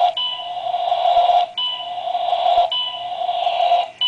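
Otis Gen2 traction elevator car travelling upward: a steady rushing running sound that dips and starts again about every second and a quarter, once for each floor passed, each time with a short high tone.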